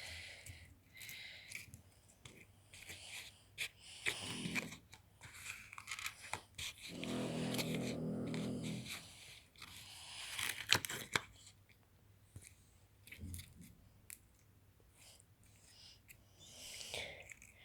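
Slime being squeezed and stretched by hand, with irregular crackling and clicking sounds. A steady hum-like voice sounds for about two seconds in the middle.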